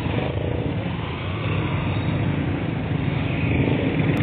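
Steady, dense street traffic noise: a low rumble of engines with no sharp bang.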